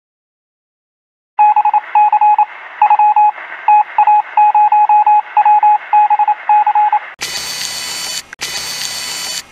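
Electronic beeping sound effect for a sunglasses-mounted scouter scanning: after about a second and a half of silence, a rapid, uneven run of short high beeps, then about two seconds of loud static from about seven seconds in, broken once by a short gap.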